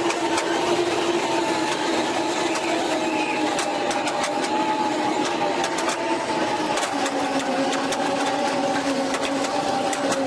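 Electric winch motor running under load as it drags the van onto the trailer: a steady whine that drops slightly in pitch about seven seconds in, with scattered faint clicks.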